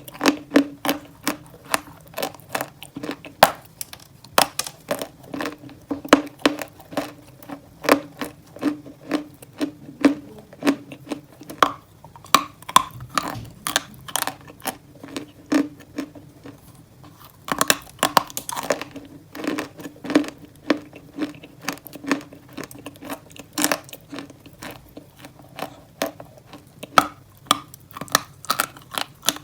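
Close-up crunching of dry White Turkestan chalk being bitten and chewed: a run of sharp, crisp crunches, two or three a second, with a short lull about two-thirds of the way through.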